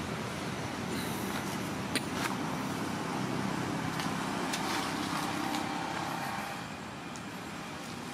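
Steady outdoor background rumble with a few short, sharp crackles, typical of dry leaf litter stirred as monkeys move across it. The rumble eases slightly near the end.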